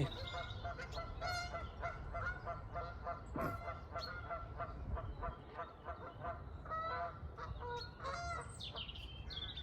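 Canada geese honking over and over, many short calls following each other a few times a second, with some small birds chirping in between.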